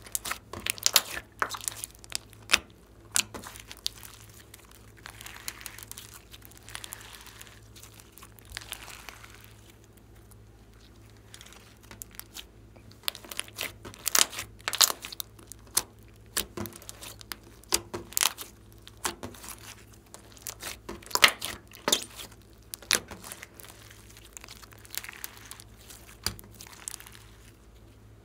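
Hands kneading and squeezing a big lump of fluffy slime with small beads mixed in, making irregular sticky crackles and sharp pops, some much louder than others. There is a quieter stretch about ten seconds in.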